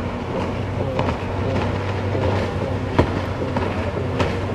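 Jet ski engine droning steadily across the water as it runs at speed, with a few sharp clicks over it, the loudest about three seconds in.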